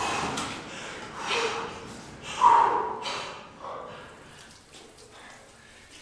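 A person breathing hard: a few heavy, breathy gasps about a second apart, one with a short groan in it, fading away toward the end.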